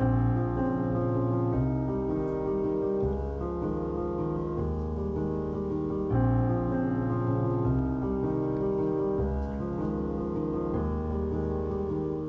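Background piano music, a slow run of sustained chords that change every second or two.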